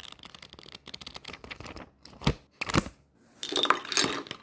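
End-card animation sound effects: a rapid run of small clicks, then two sharp knocks about half a second apart, then a brighter, noisier clatter near the end.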